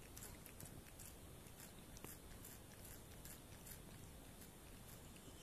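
A cat licking with faint, wet clicking licks at about two or three a second.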